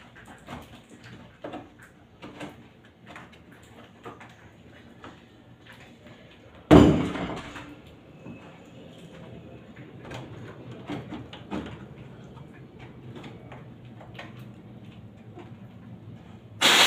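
Scattered small clicks and knocks of hands and tools working at an air conditioner's drain line, with a loud sudden thud about seven seconds in that dies away over a second, and another near the end.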